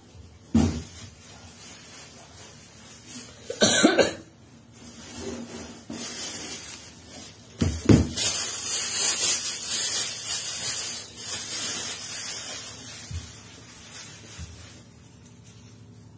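A knife peeling the skin off an apple mango held in the hand, close to the microphone: a soft scraping rasp through the middle, with a knock near the start and two short, sharp cough-like bursts about four and eight seconds in.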